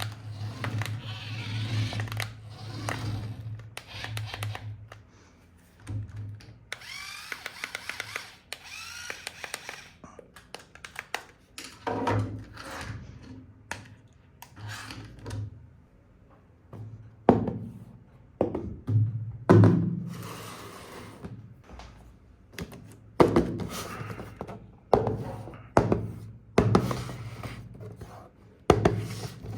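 Knocks and thuds of plastic RC toys and their packaging being handled, with a scraping noise about seven seconds in.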